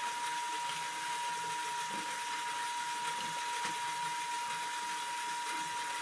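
LEGO electric motor and gear train running steadily, turning a Reuleaux-triangle mechanism inside a square frame, with a constant whine over an even whirring hiss.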